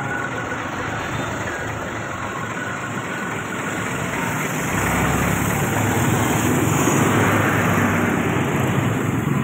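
Motor vehicle engine running steadily amid road noise, growing louder about halfway through.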